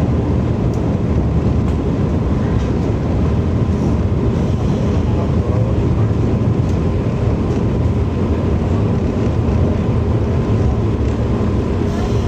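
Electric commuter train running, heard from inside the car: a steady rumble of wheels and running gear with a faint steady whine above it.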